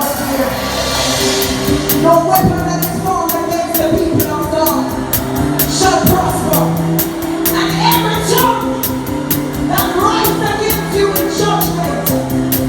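Live church music: singing over a band, with held chords and a steady beat.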